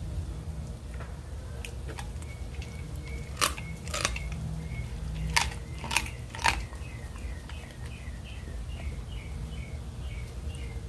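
Doberman chewing chicken wings, the bones crunching in about five sharp cracks through the middle of the stretch, with wet chewing between them.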